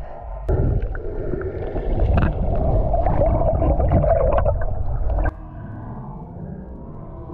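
Muffled underwater noise picked up by a GoPro's microphone in the water: a loud gurgling, rumbling wash. It starts suddenly about half a second in and cuts off abruptly a little after five seconds, leaving a quieter steady rumble.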